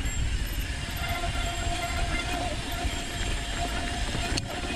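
Mountain bike rolling fast down a dirt and rock trail: wind buffeting the helmet camera and tyre rumble, with a steady high buzz from the Industry Nine rear hub freewheeling as the rider coasts. One sharp knock comes about four seconds in.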